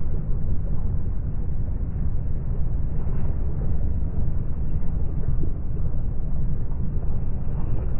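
Boat-deck sound of engine, wind and sea slowed down several times for a slow-motion replay, heard as a deep, muffled, steady rumble with nothing high-pitched left in it.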